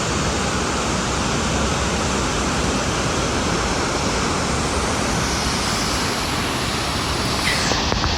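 Lower Lewis River Falls running: a steady, even rush of falling water.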